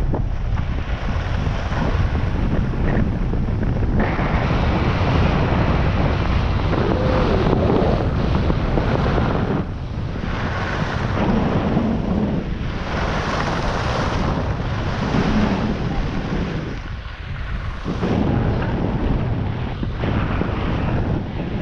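Wind buffeting the camera's microphone while travelling fast down a groomed ski slope, a loud, steady rush with a few short lulls. The hiss of sliding on packed snow runs beneath it.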